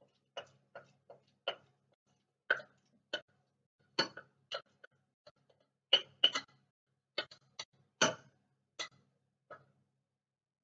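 Irregular sharp clicks and knocks of kitchenware being handled, pans and utensils clattering as cooked pasta and cauliflower are drained at the sink. There are about two a second, uneven in loudness, with a few louder knocks near the middle and late on.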